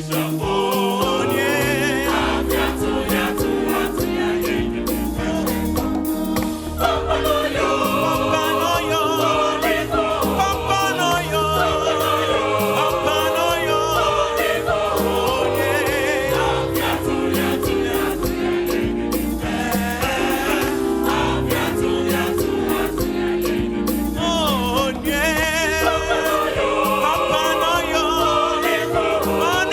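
Choir singing gospel music with instrumental backing: several voices holding and moving through sustained notes over a steady bass and beat.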